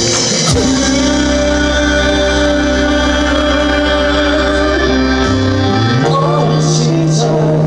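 A man singing a musical-theatre number into a handheld microphone over loud amplified backing music with long held notes. A held bass note steps higher about five seconds in.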